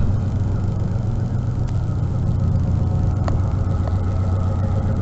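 Vehicle engine idling steadily, with a few faint clicks over it.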